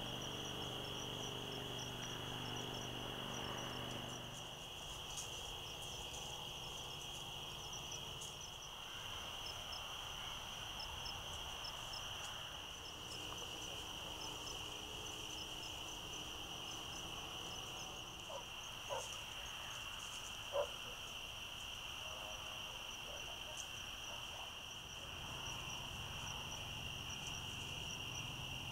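Night insect chorus: a steady high trill with quicker chirping above it. A couple of short knocks come about two-thirds of the way through.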